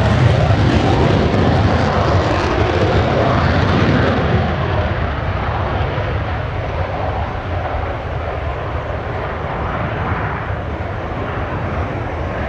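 The twin J79 turbojets of an RF-4E Phantom II roaring in afterburner on a heavily loaded takeoff. The roar is loudest at the start and fades gradually as the jet climbs away.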